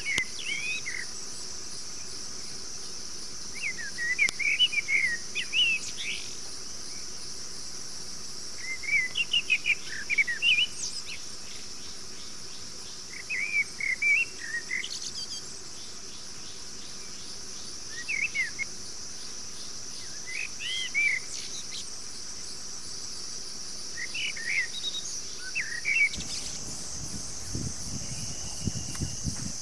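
A steady high-pitched drone of insects, with a bird singing a short chirping phrase again and again, about every four to five seconds. A faint low rustle comes in near the end.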